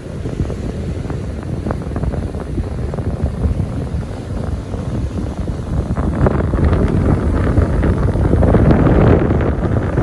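Ocean surf washing on the beach under strong wind buffeting the microphone with a low rumble; the surf grows louder and hissier in the second half.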